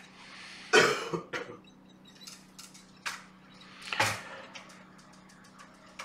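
A person coughing twice, a short sharp cough about a second in and another about four seconds in, with faint light ticks between and after.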